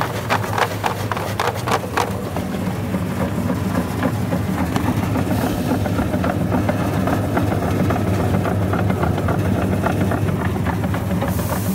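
Double-head vegetable cutter machine running with a steady electric motor hum. In the first two seconds a quick run of clattering knocks sounds as a vegetable is pushed through the cutting head.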